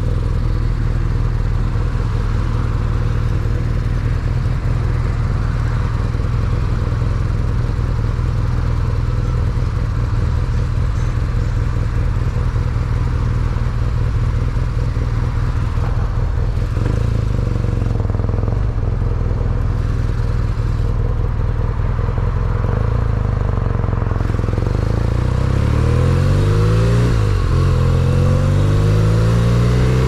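2019 BMW R nineT Pure's boxer twin engine running steadily, then from about 25 seconds in accelerating, its pitch rising and dropping several times through gear changes.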